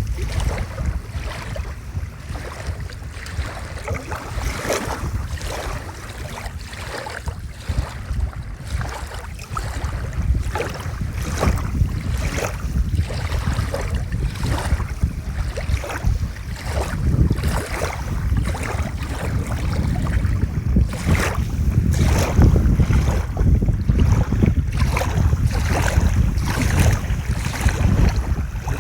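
Small lake waves lapping and splashing against the shore in a string of irregular splashes, with wind rumbling on the microphone.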